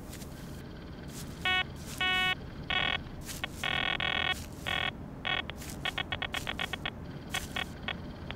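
Metal detector beeping as its search coil sweeps over metal: short electronic tones, one longer tone about midway, then a fast run of short beeps near the end, signalling metal under the coil.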